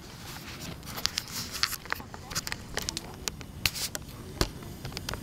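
Camera handling noise: irregular clicks, knocks and light scraping as the camera is moved about and set on its tripod, over a low steady background hiss.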